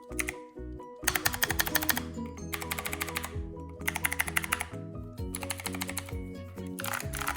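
Background music with a stepped melody, over which a mechanical keyboard is typed on in several quick bursts of rapid clicking, each about a second long.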